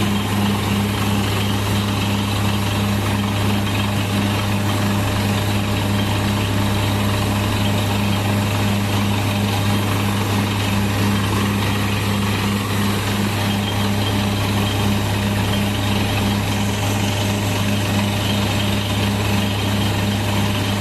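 Borewell drilling rig's engine running steadily at a constant speed, with a low hum and a fast, even pulsing.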